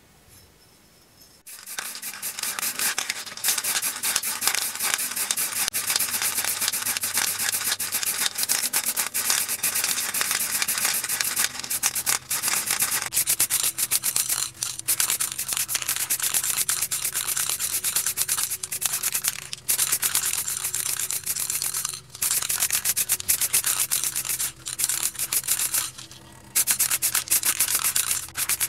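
Spray paint hissing in long bursts with a few brief pauses, starting about a second and a half in, as a red coat goes on.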